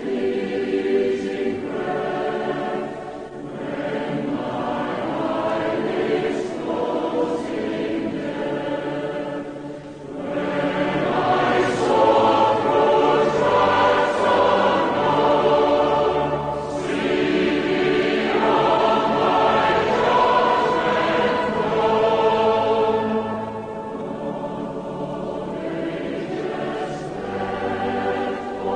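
A choir singing a hymn in slow, held phrases with short breaks between the lines. It grows louder about ten seconds in and softens again near the end.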